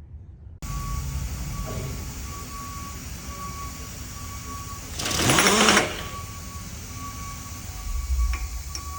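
Pneumatic power drawbar on a milling machine spindle cycling once, about five seconds in: a short, loud burst of air and rattle with a rising whine, under a steady mechanical background. A smaller low thump comes near the end.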